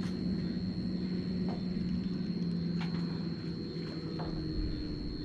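A steady low mechanical hum that drops slightly in pitch about four seconds in, under a steady high thin whine, with a few faint clicks.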